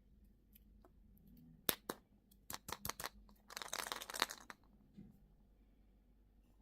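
Plastic candy packaging being handled and opened: a few sharp clicks and crackles, then about a second of dense crinkling and tearing.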